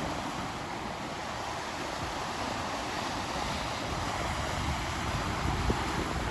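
Atlantic surf washing steadily onto the beach, with wind buffeting the microphone as a low rumble.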